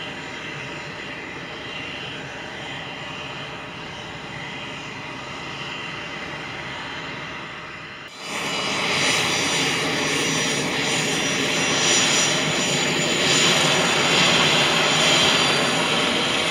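Cessna 560XL Citation Excel business jet's twin turbofan engines running on the ground with a steady whine. About eight seconds in, the sound cuts suddenly to a louder passage with a strong high-pitched whine and hiss.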